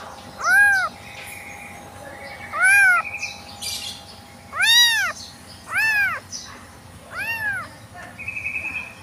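A very young tabby kitten, abandoned and without its mother, meowing five times in high, thin cries, each rising and then falling in pitch.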